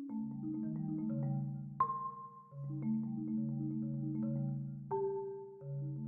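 Solo marimba played with four yarn mallets: low notes held in rapid tremolo rolls, with a sharper higher note struck and left ringing about two seconds in and again near five seconds.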